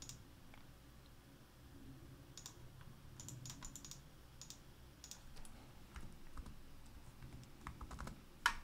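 Faint computer keyboard keystrokes and mouse clicks, coming irregularly in small clusters.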